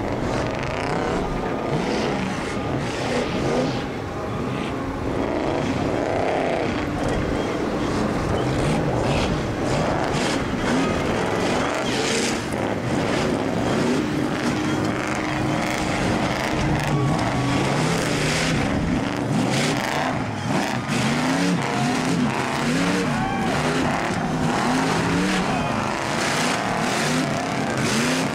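Off-road race buggies' engines running hard, their revs rising and falling over and over as they accelerate and back off across rough ground. Two or more engines overlap.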